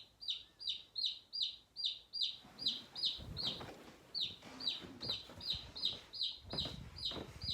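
Lone young chick peeping loudly and insistently, sharp calls that fall in pitch, about three a second: the distress calling of a chick left alone. Low rustling and thumps run underneath from about two and a half seconds in.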